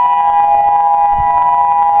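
Federal Signal EOWS-612 electronic outdoor warning siren sounding a steady tone during a tornado siren test. The pitch holds level, neither rising nor falling.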